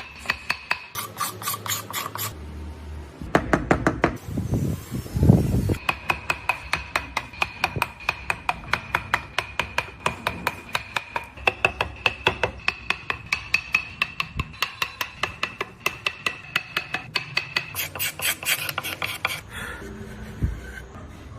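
Hand file rasping wood in quick, even strokes, about four a second.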